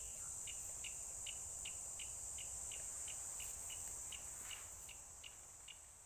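A steady high-pitched insect drone, with short chirps repeating evenly about two and a half times a second; the sound begins to fade near the end.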